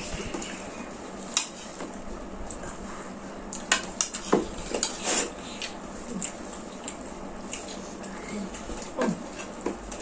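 Dishes and utensils clinking and scraping on plates during a meal, a few sharp clinks scattered through it and most of them in the middle.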